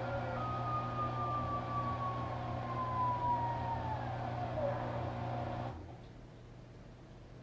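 Washing machine motor and drum winding down from a spin: a whine falls steadily in pitch over a steady hum, then the hum and whine cut off suddenly near the end, leaving only faint background noise.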